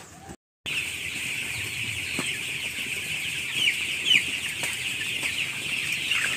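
A large flock of 14-day-old broiler chicks peeping together in a dense, continuous high chorus, with a few louder single cheeps standing out. The chorus starts after a brief silent break about half a second in.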